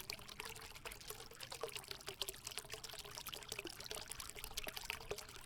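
Liquid pouring steadily, with many small ticks and splashes over it.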